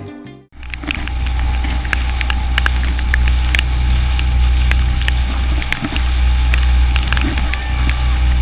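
Small outboard motor on a dinghy running steadily at cruising speed, a low even drone with faint scattered ticks over it.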